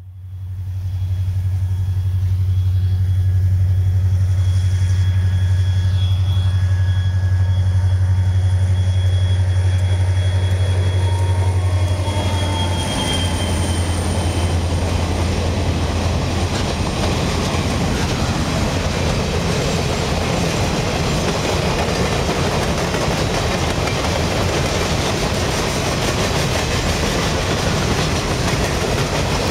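U.S. Sugar diesel locomotive approaching with a steady low engine drone and a faint high whine that drops in pitch as it passes about 13 seconds in. After that, a long string of empty sugar-cane cars rolls by, a steady, loud noise of wheels running over the rails.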